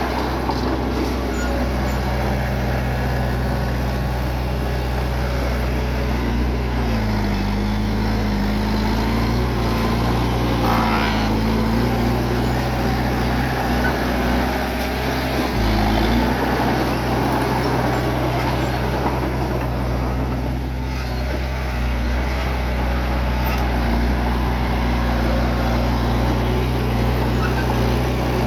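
Bulldozer's diesel engine running steadily, its note dropping and shifting for several seconds around the middle before settling back.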